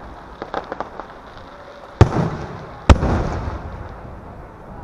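Aerial fireworks bursting: a few small crackling pops in the first second, then two loud shell bursts just under a second apart, each followed by a rolling echo that slowly fades.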